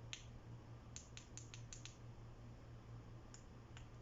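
Faint clicks of a ring light's small plastic push button being pressed: one at the start, a quick run of about five a second in, and two more near the end, over a low steady hum.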